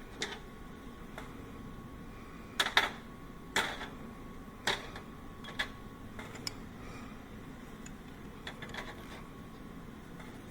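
Scattered clinks and knocks of metal parts and tools being handled, about ten in all, loudest as a close pair a little under three seconds in, over a steady low hum.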